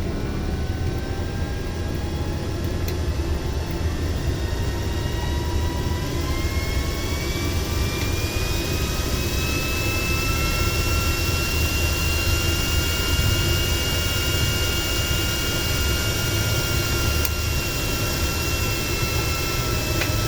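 A mechanical whine that rises in pitch over about ten seconds and then holds nearly steady, over a constant low hum.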